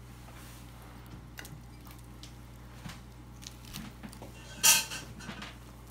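Chinese cleaver cutting braised bear paw on a wooden cutting board: quiet cuts and taps, then one loud chop with a brief metallic ring about four and a half seconds in.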